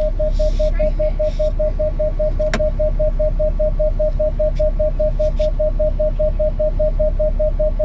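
Vehicle warning chime beeping rapidly and without a break inside the cabin, about five beeps a second at one pitch, over a steady low rumble, with a single click about two and a half seconds in.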